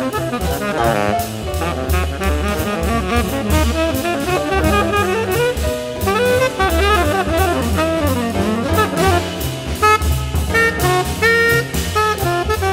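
Jazz combo playing an uptempo instrumental passage: a saxophone plays a fast improvised line over bass and drum kit.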